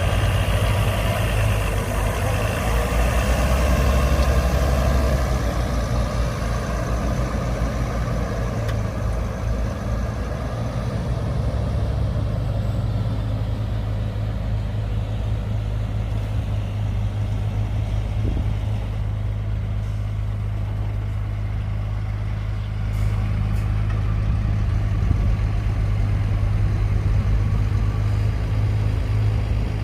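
Heavy diesel engine of earthmoving machinery running steadily with a low drone, a little louder about three to five seconds in.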